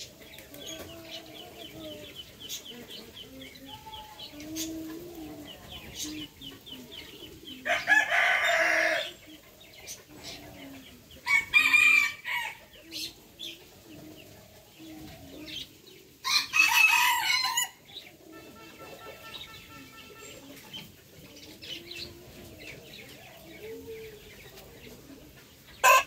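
Rooster crowing three times, each crow harsh and about a second and a half long, over soft, continuous clucking from chickens. Faint rapid high chirping is heard in the background.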